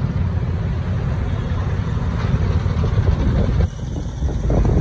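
Dense city road traffic: a steady low rumble of motorcycle and car engines mixed with wind and road noise, heard from among the vehicles while moving. About three and a half seconds in, the sound abruptly turns duller and quieter, then swells again near the end.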